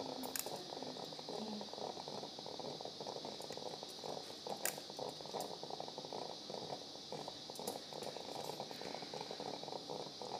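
Quiet operating-room background: a steady high-pitched hiss over a low crackly rustle, with a few light clicks scattered through. A faint murmured voice sounds in the first couple of seconds.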